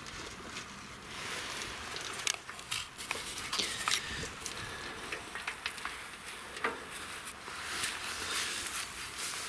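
Crackling, rustling soil and scattered sharp clicks as a garden bed is dug and earth is handled.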